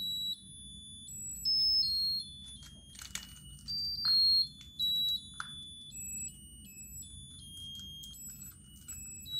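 A musical lotus-flower birthday candle's electronic chip playing a tinny, high-pitched beeping tune, one pure tone per note, stepping from note to note. Now and then its plastic petals click and rattle in the hands.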